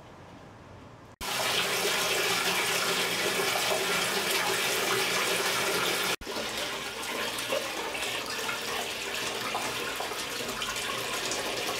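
Water pouring from a wooden spout into a bathtub, a steady splashing rush that starts suddenly about a second in after a faint hum. It breaks off for an instant at about six seconds and carries on as closer splashing into the filling tub.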